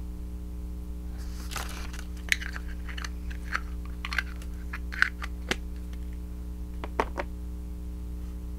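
Small plastic toys and packaging being handled: a run of sharp clicks and brief crinkling, the loudest clicks about two, five and seven seconds in, over a steady low electrical hum.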